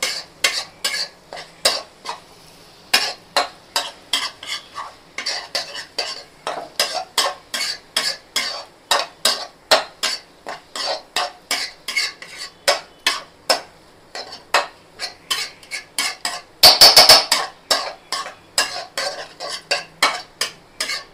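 Metal spatula scraping and knocking against a metal kadai as an onion-tomato masala is stirred, in a steady run of about two to three strokes a second. About seventeen seconds in comes a brief flurry of quick, louder knocks.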